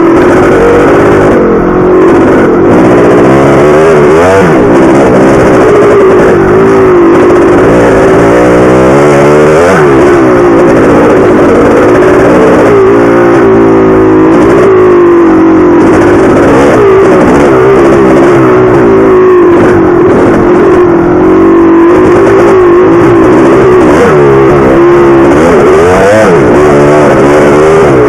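1983 Maico 490's two-stroke single-cylinder engine, loud, revving up and down over and over as the throttle is worked while riding a dirt trail.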